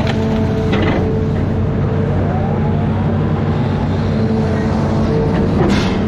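Amphibious excavator's engine running steadily under load, with brief knocks about a second in and near the end.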